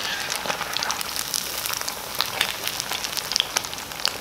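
Sabudana vada (sago and potato patties) sizzling in hot oil, a steady crackle with many small pops. The oil has been turned down to medium so the patties cook through to the centre.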